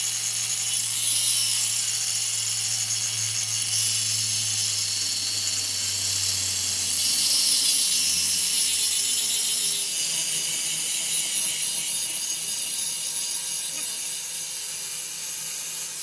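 A tool working metal, making a steady rasping noise throughout.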